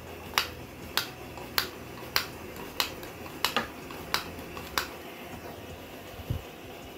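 Fuel-bottle pump of a Soto Stormbreaker multifuel stove clicking about nine times, roughly every 0.6 s, as it is worked by hand, over the steady hiss of the lit burner. A low thud follows near the end.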